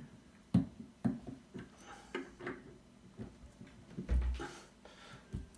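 Light clicks and knocks as a kitchen mixer tap's handle and concealing cover are fitted back onto the cartridge spindle and lined up, with a duller thump a little after four seconds.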